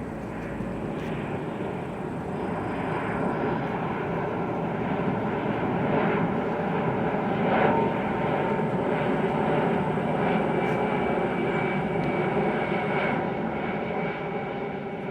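Airplane engines running, a steady drone that swells a little toward the middle and eases near the end.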